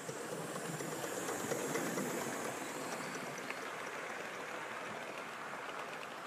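Gauge 1 model steam locomotive, a North Eastern R1 4-4-0, running past close with its train of coaches: a steady rushing clatter of wheels on the rails. It is loudest about two seconds in as the locomotive goes by, then slowly fades as the coaches roll past.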